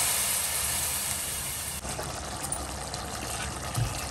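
Goat trotter stock hissing and bubbling in a hot steel kadai just after being poured onto the fried masala, fading as it settles toward a simmer. A short low thump near the end.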